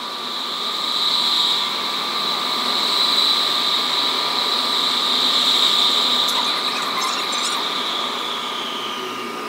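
Doha Metro train running through a tunnel, heard from inside the front car: a steady high-pitched electric drive whine with a couple of fixed lower tones over even running noise. It swells louder about a second in, and the whine slides down in pitch near the end.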